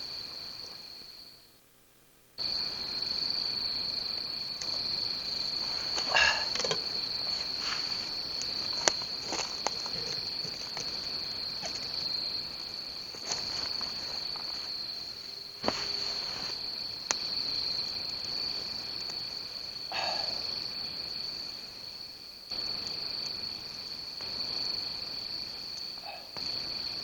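Crickets chirping in a steady, continuous high trill, with a few scattered clicks and knocks. The trill and all other sound fade and drop out for about a second near the start, then come back.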